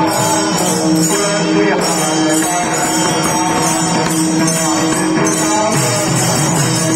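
Music: a melody over a steady held drone note, with jingling percussion.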